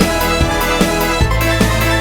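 Loud electronic music with a steady kick-drum beat of about two and a half beats a second over sustained synth chords; a deeper bass comes in just past halfway.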